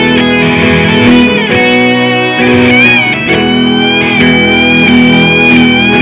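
Instrumental rock music: an electric guitar plays a held lead melody with vibrato and a bend about three seconds in, over a steady accompaniment.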